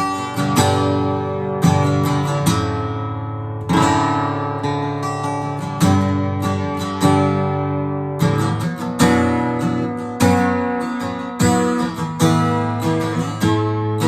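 1930s–40s Gibson SJ (Southern Jumbo) acoustic guitar strummed, chords struck about once a second and left to ring, with a few quicker strums in between.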